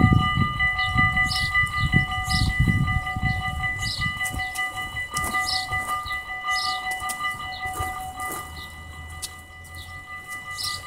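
Electric warning bells of a Dutch automatic half-barrier level crossing ringing steadily as the booms lower, several bell tones sounding together. One of the tones stops about eight seconds in, as the barriers come fully down. Under them is a low rumble, strongest at the start, that fades.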